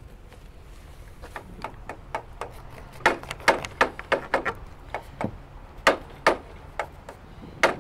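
Hand hammer striking the timber of a wooden boat hull: a run of sharp, irregular knocks, about two or three a second, starting about a second in.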